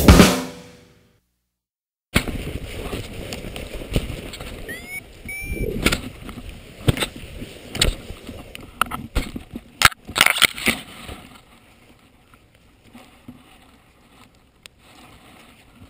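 Background music fades out at the start; after a moment of silence, wind rushes over the camera microphone with a cluster of sharp knocks and rustling as a paraglider pilot touches down on a grassy slope, then quieter footsteps on dry grass.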